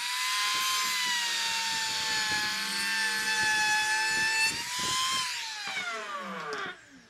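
Electric power tool cutting wood: the motor whines at full speed, then winds down over about two seconds after it is switched off.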